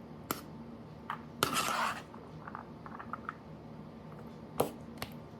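Utensils clinking and scraping against a plate and dish while noodles are served: a few sharp clicks, with one longer scrape about a second and a half in.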